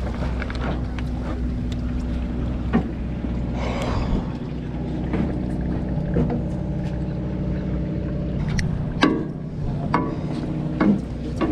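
Steady low hum of a charter fishing boat's engine running, with scattered knocks and clicks on deck, the loudest about nine seconds in.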